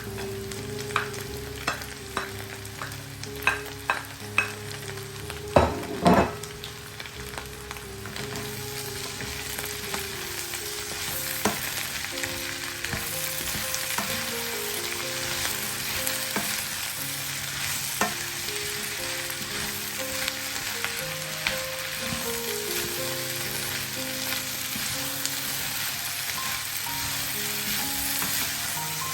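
Onions frying in oil in a pan, sizzling, with a series of knocks on the pan in the first few seconds and a louder clatter about six seconds in as diced potatoes are added. After that the sizzle grows louder and steadier while the pan is stirred, with the odd click of the spoon.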